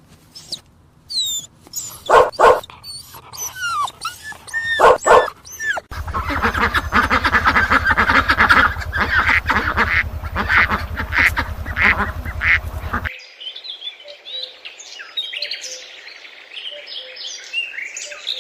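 A run of animal calls: first a dog barking in short pairs with birds chirping between, then from about six seconds in a dense chorus of waterfowl calling over a low buzz, which gives way near thirteen seconds to thinner, higher calls.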